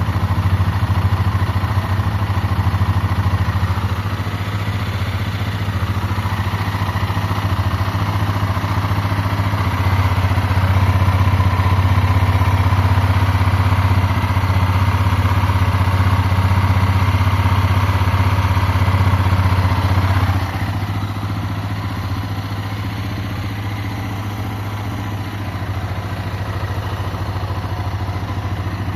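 Honda CB Twister's single-cylinder engine running steadily with its drive fitted with a new fine-pitch chain and sprocket kit, which the owner presents as making no chain noise. The engine note grows louder about ten seconds in and drops suddenly about twenty seconds in.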